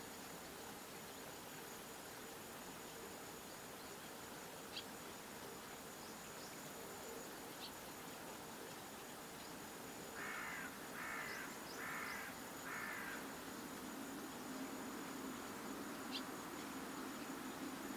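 Faint outdoor ambience with a steady high-pitched insect-like tone, a few scattered short chirps, and a run of four harsh bird calls about ten seconds in. A low hum comes in near the end.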